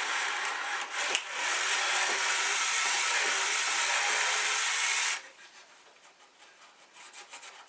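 Electric drill boring a bolt hole, running steadily and stopping abruptly about five seconds in, followed by faint clicks of handling.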